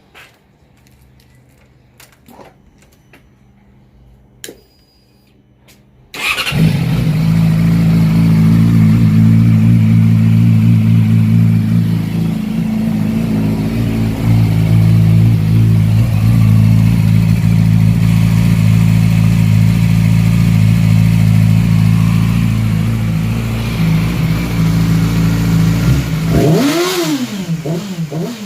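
A few faint clicks, then about six seconds in a 2013 Yamaha R6's 600cc inline-four engine comes in suddenly and runs steadily. Near the end it is revved once, the pitch rising and falling.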